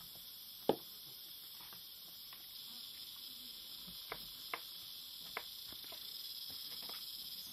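Steady, high-pitched chorus of rainforest insects, with a few sharp clicks, the loudest about three-quarters of a second in.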